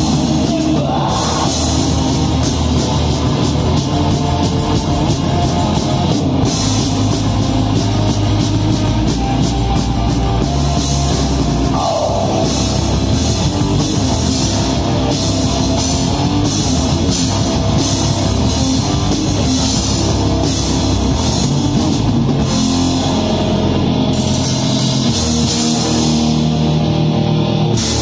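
Heavy metal band playing live: distorted electric guitars, bass and a drum kit, with rapid drum and cymbal hits through the middle.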